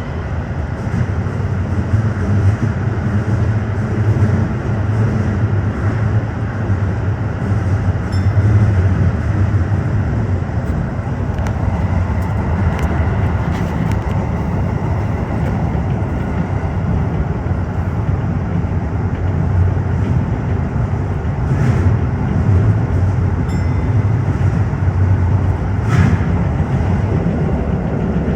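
Tokyo Metro 15000 series electric train running steadily between stations: an even rumble of wheels on rail, broken by a few brief clicks, the sharpest near the end.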